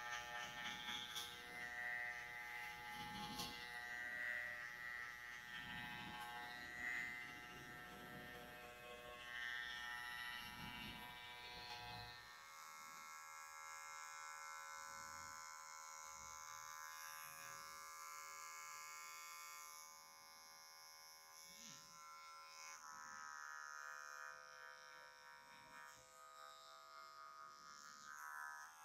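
Electric hair clipper buzzing steadily as it trims short hair at the back of the head and neck.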